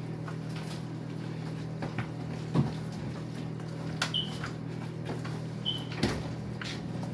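A spoon knocking and scraping against a bowl as a creamy sour cream, milk and egg mixture is stirred: a few sharp knocks with brief squeaks, over a steady low hum.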